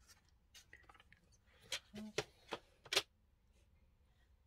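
Card stock and a plastic paper trimmer being handled and set down: a few light clicks and taps, the sharpest about three seconds in.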